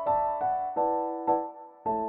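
Background music: a slow piano melody, each note or chord struck and left to fade, about two a second.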